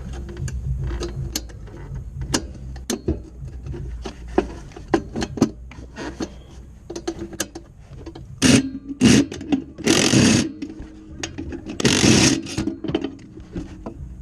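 Hand tools working a metal exhaust clamp: scattered sharp metallic clicks and clinks, with a few louder rasping bursts in the second half, the loudest about ten and twelve seconds in.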